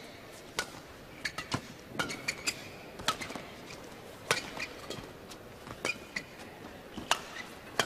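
Badminton rally: sharp cracks of rackets striking the shuttlecock, irregularly about every half second to a second, with short squeaks of shoes on the court floor.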